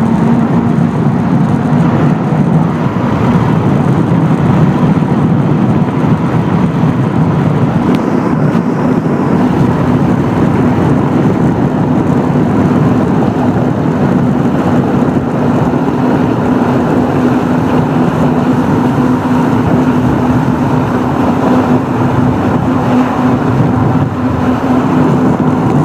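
Jet ski engine running steadily under way, a constant drone over a broad rush of noise, its pitch rising slightly about eight seconds in.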